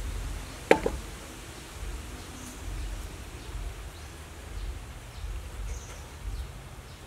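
Outdoor ambience: a fluctuating low rumble, a sharp double knock a little under a second in, and a couple of faint high chirps.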